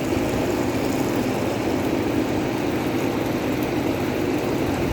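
A steady mechanical drone, like an engine running, starting abruptly.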